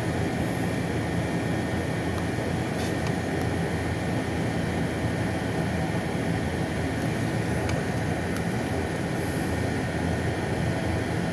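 A steady low rumble with a few faint clicks, and no loud bangs.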